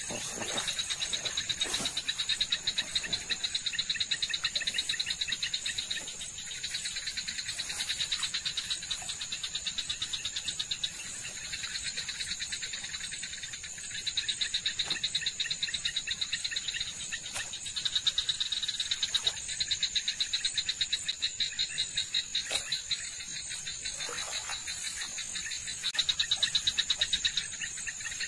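Night chorus of frogs and insects calling: a fast, high-pitched pulsing trill that swells and fades in bouts of a few seconds.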